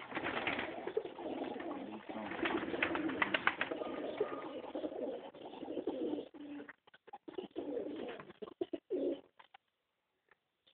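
Domestic pigeons cooing in a loft. The cooing is dense for about six seconds, then breaks up into scattered bits and dies away shortly before the end.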